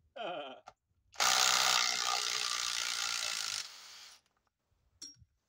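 Kobalt XTR 24-volt cordless impact driver hammering under load for about two and a half seconds, starting about a second in, as it drives a fastener into a log. The driver is hot from sustained hard use, with grease starting to ooze out of it.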